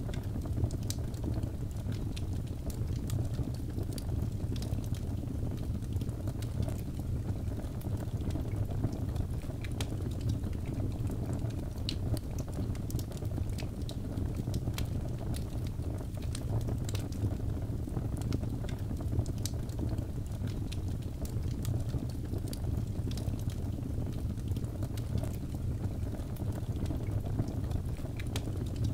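Wood fire burning in a fireplace: a steady low rumble of flames with frequent small, irregular crackles and pops.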